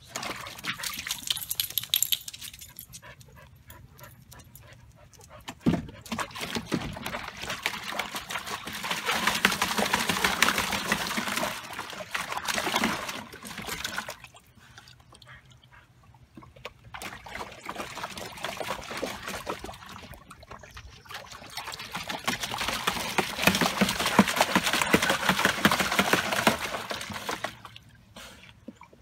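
Siberian husky pawing and splashing in rainwater inside a plastic storage tub: sloshing water in long bursts, with two short pauses.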